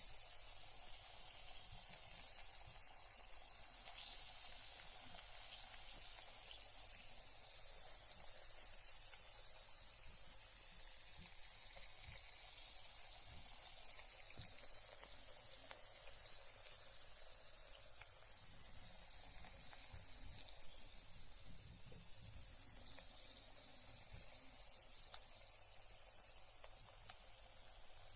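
Carbonated bath bomb fizzing in bath water: a steady, high hiss of bubbles with scattered faint ticks and pops.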